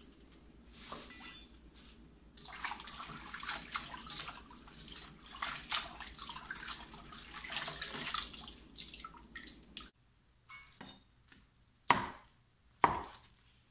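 Hands swishing and splashing bok choy leaves around in a stainless steel bowl of water. It breaks off suddenly, and then a cleaver strikes a wooden cutting board twice, sharply, about a second apart, cutting bok choy.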